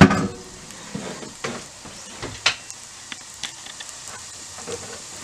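Diced onions and green bell peppers sizzling in vegetable oil in a pot, a steady hiss with scattered pops and crackles. A brief knock right at the start.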